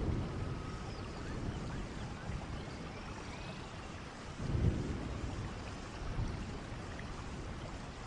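Steady rushing outdoor noise with low rumbles, the strongest about halfway through.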